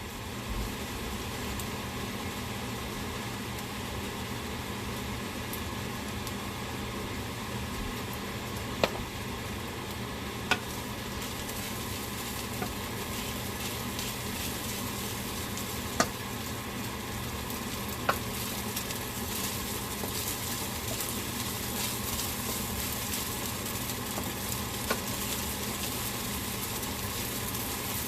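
Fried rice sizzling in a hot oiled pan while being stirred, with a steady frying hiss and a few sharp knocks of the utensil against the pan.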